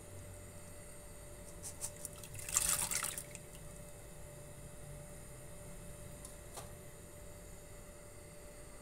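Dry lentils poured into a pot of water, a brief splashing patter lasting about a second and a half. A faint click follows a few seconds later over a steady low hum.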